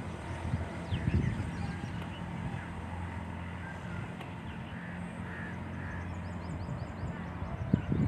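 Outdoor field ambience: small birds chirping in short high calls over a steady low hum.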